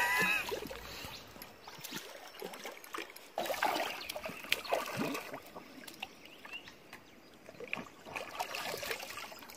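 A dog wading and swimming through a shallow river, the water sloshing and splashing irregularly around its body.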